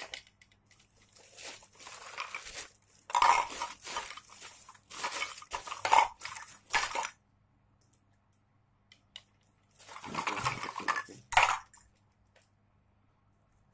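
Small plastic cupping cups being handled and set on the skin with a suction pump, in several bursts of clattering, hissing noise lasting one to two seconds each.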